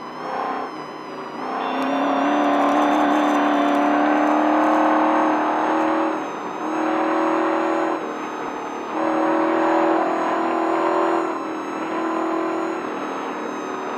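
Desert race truck's engine pulling hard in surges, easing off briefly every two to three seconds as the driver lifts and gets back on the throttle, with a steady high whine above it.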